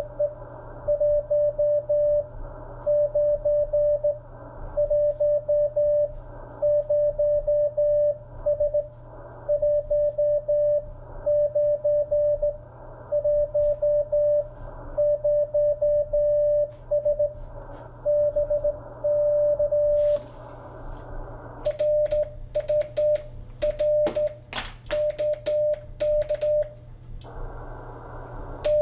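Morse code from an Icom IC-7300 transceiver: a steady single-pitch beep keyed in dots and dashes over receiver hiss, first the other station's incoming message. From about 20 seconds in, the beeps come with sharp clicks from a straight key as the operator sends his reply.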